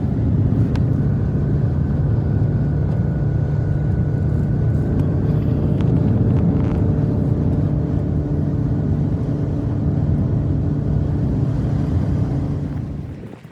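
An engine running steadily at a constant pitch, a loud low drone that fades out near the end.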